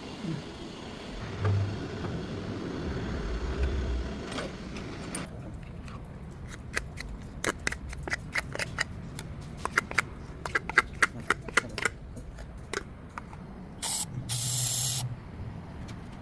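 A low rumble, then a quick run of sharp metallic clicks and knocks, like tools being handled. Near the end comes a loud hiss of about a second, like a burst of compressed air.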